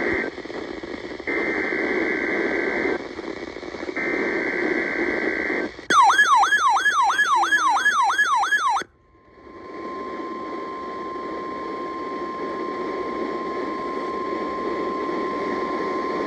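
NOAA Weather Radio Required Weekly Test received over a weather radio with steady static: the SAME header's data bursts (the end of one, then two more), then a warbling alert siren sweeping up and down about two and a half times a second for about three seconds. After a sudden drop the steady 1050 Hz warning alarm tone sounds for about seven seconds.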